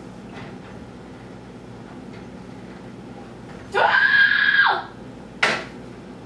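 A woman's sudden yelp, about a second long, then a brief second outburst. It is her reaction to splashing the hot sauce out of the pan onto the stove element.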